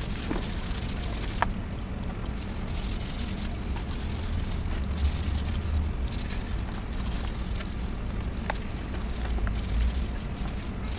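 Wet sandpaper rubbing by hand on a plastic scooter body panel, a soft scrubbing hiss that comes and goes, over a steady low rumble.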